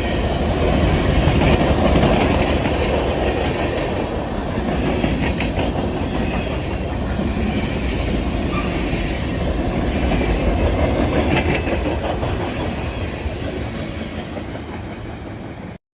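A train rolling past with a steady rumble and wheels clicking over rail joints now and then. It fades slightly, then cuts off suddenly near the end.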